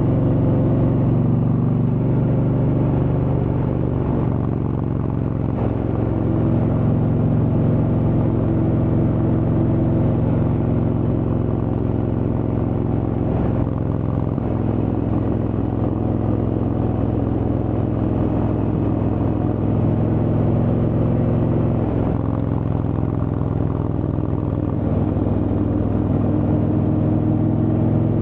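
Indian Chieftain's Thunderstroke V-twin engine through a Freedom Performance exhaust, running steadily while the motorcycle cruises, its pitch rising slightly near the end.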